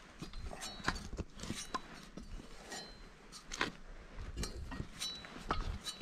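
Metal tree-stand ladder sections clinking and knocking as they are handled against a tree trunk, with an irregular string of sharp metallic clicks, a few ringing briefly.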